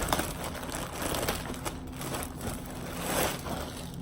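Plastic packaging crinkling and rustling as a jacket is unwrapped by hand, in uneven swishes and crackles.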